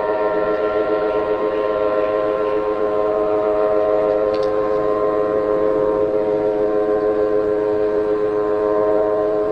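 Emergency alert alarm tone: a chord of several steady tones held without a break, unchanging in pitch.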